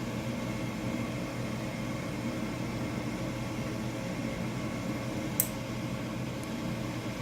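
Gas furnace starting its cycle with a steady mechanical hum and hiss; a single sharp click about five seconds in.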